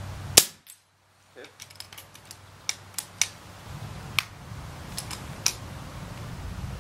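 A .22 FX Impact PCP air rifle fires once, a sharp crack about half a second in. It is followed by a few light metallic clicks as the side lever is cycled to chamber the next round.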